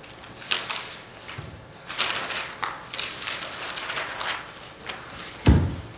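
Paper pages of a book being turned and shuffled, rustling in several short bursts close to a handheld microphone, with one dull thump near the end.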